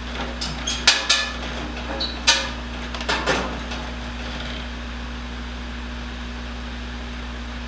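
A handful of sharp metallic clanks and knocks, some ringing briefly, over a steady hum. The loudest come about a second in and again just after two seconds, then only the hum remains.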